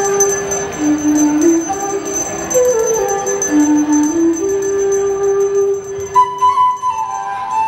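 Bansuri flute playing a folk melody in its low register, with a jingling percussion accompaniment underneath; about six seconds in the melody leaps up to a higher register.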